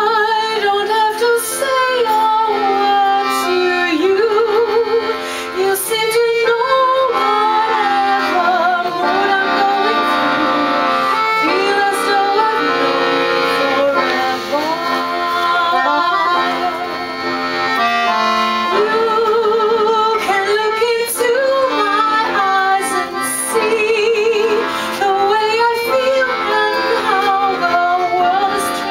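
Live music: classical-style singing with strong vibrato over a sustained instrumental accompaniment, continuous and loud.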